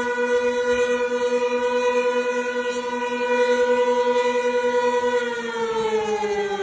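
Outdoor tornado warning siren sounding a steady tone, then starting to wind down, its pitch falling, about five seconds in. It is sounding a tornado warning.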